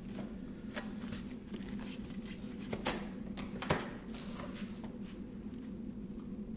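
A cardboard shipping box being opened and handled: scattered rustles and sharp clicks and scrapes, the loudest about three and a half seconds in, over a steady low hum.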